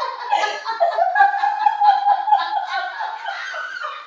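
Women laughing hard with high-pitched, continuous giggling that eases off a little near the end.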